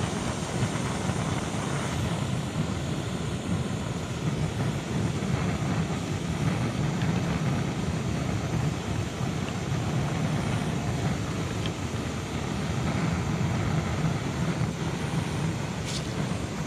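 Small canister-top gas camping stove burning steadily at a strong flame, giving an even rushing burner noise.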